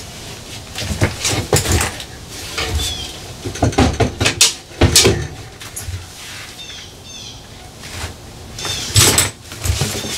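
Irregular knocks, clunks and rattles of hands working on cables and metal fittings inside a metal equipment bay, with the heaviest clatters about a second in, around four to five seconds in, and near the end.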